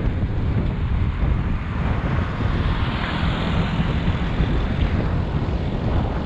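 Wind buffeting the microphone of a bicycle rider's action camera while riding at speed: a steady low rumble with hiss, swelling briefly in the higher hiss about halfway through.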